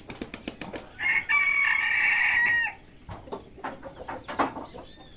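A rooster crowing once: one loud call of about a second and a half that drops in pitch at the end, with short irregular taps before and after it.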